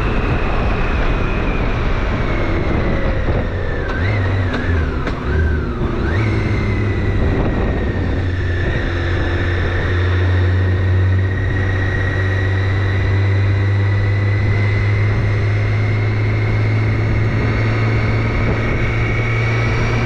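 BMW K1600 GTL's inline six-cylinder engine running under way, heard from the rider's seat over wind and road noise. The engine note wavers briefly about four to six seconds in, then settles into a steady note whose pitch slowly rises.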